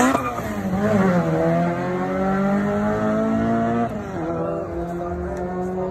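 Car engine revving and accelerating hard, its pitch climbing steadily, then dropping sharply about four seconds in and holding a lower, steady note.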